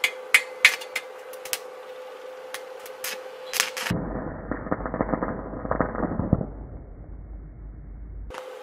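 Electric arc welding on steel rebar: a few sharp snaps over a steady hum, then from about four seconds in the arc burns with a dense crackle for about four seconds before it stops shortly before the end.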